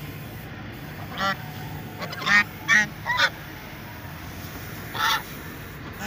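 Domestic geese honking: five short honks, three of them in quick succession midway.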